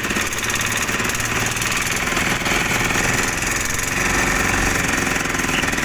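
Heavy diesel engine of construction machinery running steadily with a fast, even pulsing.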